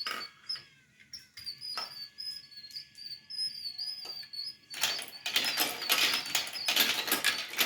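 Plastic marble run: a few isolated clicks, then from about halfway on a dense, rapid clatter of marbles rolling and knocking through the plastic track. A faint high warbling whistle sounds through the first half.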